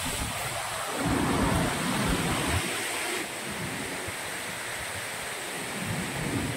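Steady rush of flowing river water, with an uneven low rumble of wind on the microphone underneath.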